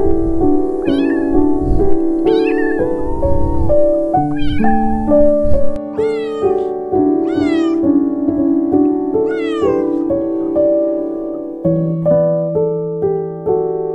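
A cat meowing repeatedly over gentle piano music: about eight short calls in the first ten seconds, each bending up and down in pitch, the later ones higher and falling in pitch. After about ten seconds only the piano plays.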